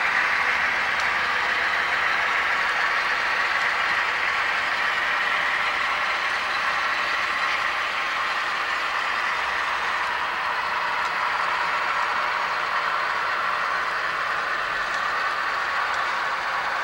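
Model railroad tank cars rolling past close by: a steady rolling hiss of small metal wheels on the rails, easing off slightly.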